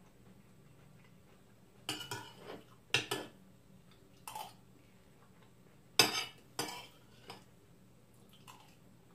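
Metal cutlery clinking and scraping on a ceramic plate as salad is scooped up. The clinks come in short clusters, the loudest about three and six seconds in.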